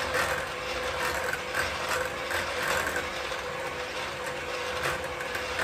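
Handheld electric mixer running with a single beater, whipping instant coffee and water in a bowl: a steady motor hum with repeated light clicks.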